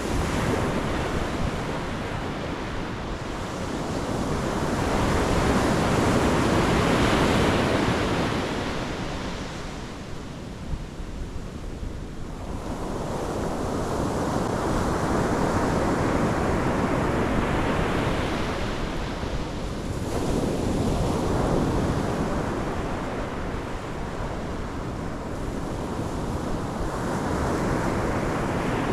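Pacific Ocean surf breaking on the shore: waves wash in and draw back in slow surges every several seconds, with some wind buffeting the microphone.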